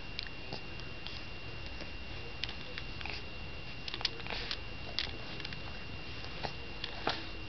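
Faint, scattered wet clicks and smacks of an infant sucking and mouthing at his brother's hand, over a steady background hiss with a thin high tone.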